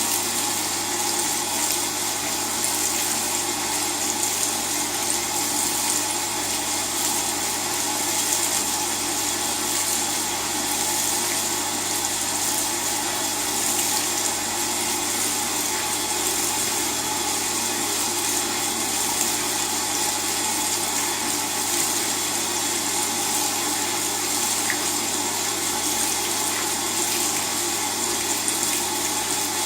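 LG WT-R852 direct-drive washing machine with water running through it: a steady rush of water over a constant low hum, with no pause or rhythm.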